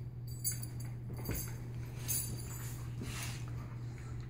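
A Caucasian shepherd puppy and a boxer-mix puppy play-wrestling on a couch: scattered soft thumps and scuffling of paws and bodies on the cushions, over a steady low hum.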